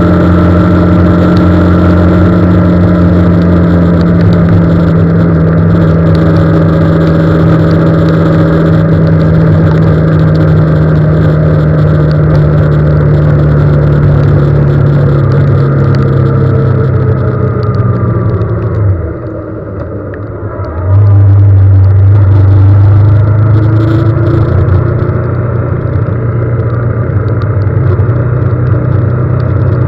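Motor vehicle's engine running steadily on the move in the rain. About two-thirds of the way through, its note falls and drops away as it slows, then after about two seconds it picks up again loudly as it pulls away.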